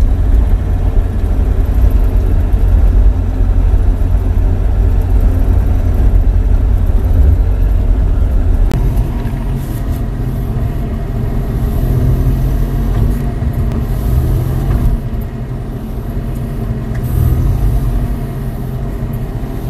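Bobcat E42 mini excavator's diesel engine running steadily under load, with a low, continuous rumble; the engine note shifts about nine seconds in.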